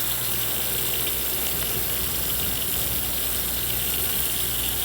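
Steady hissing road noise with a low drone from a vehicle moving through a snowstorm, its tyres running over a wet, slushy road.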